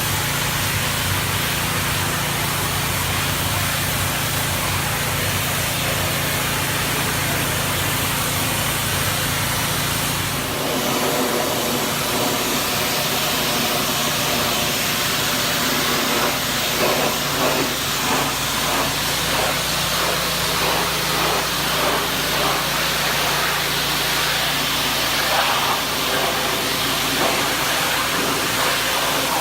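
Pressure washer running: a steady motor hum under the hiss of the water jet spraying. About ten seconds in the motor hum drops away and the spray hiss carries on, louder and fluttering.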